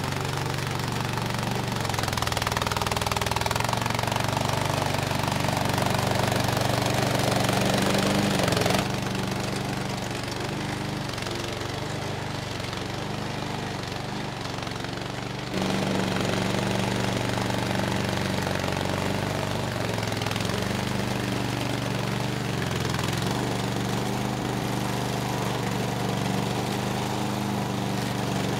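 Small engine of a tracked remote-control lawn mower running steadily as the machine drives over grass. About nine seconds in the sound suddenly drops and gets duller, and about fifteen seconds in it jumps back to full level.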